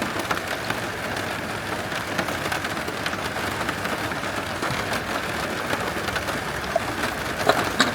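Steady rain falling, a constant hiss dotted with small drop ticks, with a few louder clicks near the end.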